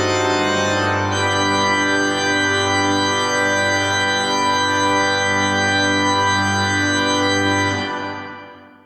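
Church organ playing, with a held bass note under moving chords; the sound fades out near the end.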